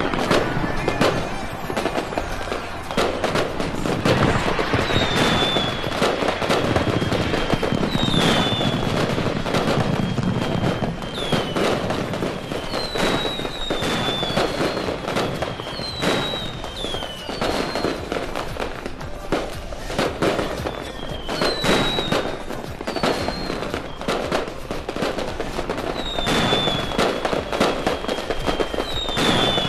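Fireworks display: a dense run of bangs and crackling, with repeated high whistles that each slide down in pitch.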